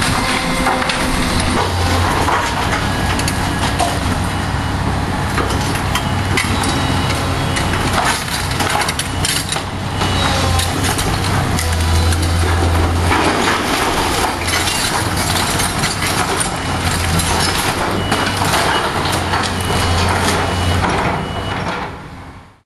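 Hydraulic excavator's diesel engine running, its note swelling every few seconds as it loads up. Over it, wood-frame walls crack, splinter and crash down as the machine's bucket and thumb tear the building apart. The sound fades out at the very end.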